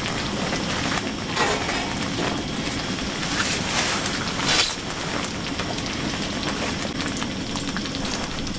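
Mr. Heater Buddy portable propane heater burning with a steady hiss. A few short rustles about one and four seconds in.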